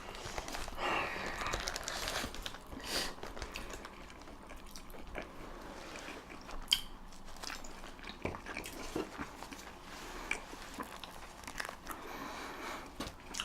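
Close-miked chewing and biting of a chili dog: soft, wet mouth sounds with scattered small clicks.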